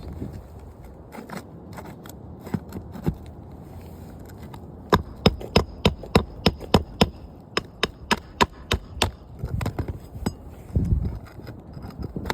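Hammer blows during roof shingle replacement: scattered knocks at first, then a quick run of sharp strikes, about three or four a second, through the middle, with a few more near the end.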